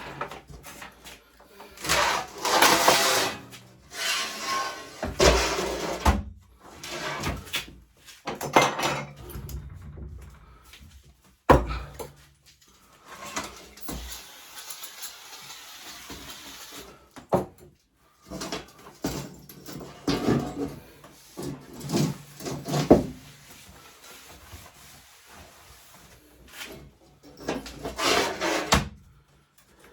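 Irregular knocks, clunks and scrapes of parts and tools being handled and set down, with one sharp knock about a third of the way in and a stretch of rubbing or scraping soon after.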